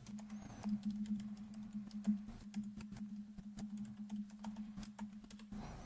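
Computer keyboard keystrokes typing a password: a run of soft, irregular key clicks, with a faint steady low hum underneath.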